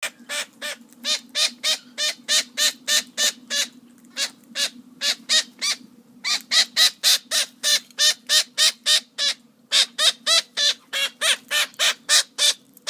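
Parrot squawking harshly and over and over, about three to four calls a second, in runs broken by brief pauses.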